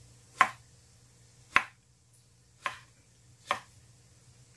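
Kitchen knife cutting through eggplant and striking a wooden cutting board: four sharp knocks about a second apart.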